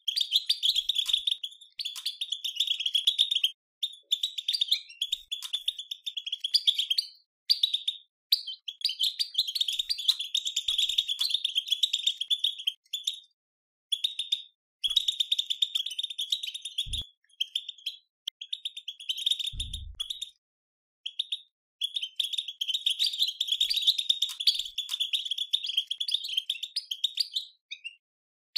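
European goldfinch twittering, the rapid dense 'batbata' chatter, in bursts of a few seconds broken by short pauses; this chatter is used to excite goldfinches into song.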